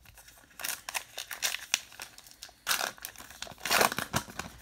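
Crinkling and rustling as a pack of baseball cards is handled and flipped through by hand, in several short irregular bursts, the loudest a little before the end.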